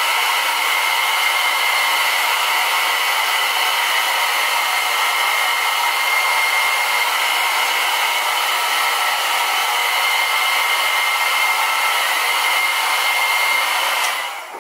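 Handheld hair dryer blowing steadily, a loud rush of air with a thin high whine through it, dropping off near the end.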